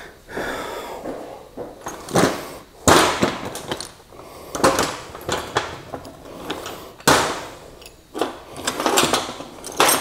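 Hand tools and sockets being picked up and set down on a diamond-plate steel tabletop, with canvas tool pouches rustling. It is a string of separate knocks and clanks, the loudest about three seconds in.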